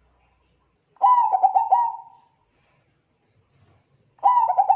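Zebra dove cooing: a quick run of several short coo notes about a second in, then a second run starting near the end.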